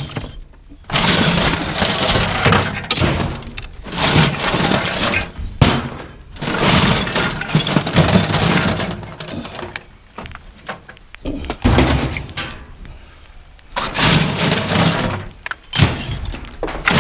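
Metal hand tools clattering and crashing as they are loaded into the back of a truck, in a series of loud bursts with short pauses between.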